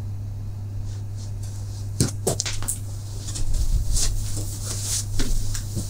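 People getting up from a meeting table and walking off: a couple of knocks about two seconds in, then shuffling and scuffing movement, over a steady low hum.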